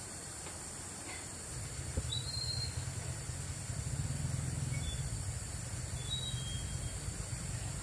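Outdoor rural ambience: a steady high hiss with a few short, thin, high chirps scattered through it. A low rumble comes in about one and a half seconds in and carries on.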